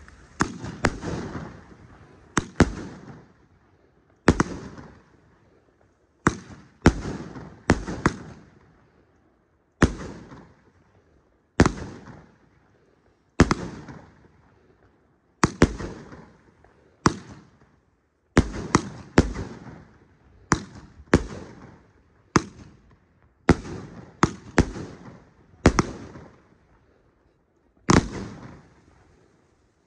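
Funke Gigante Strobe-Dahlias 19-shot, 38 mm calibre F3 firework battery firing its shots, with a string of sharp bangs, one every second or two, each trailing off.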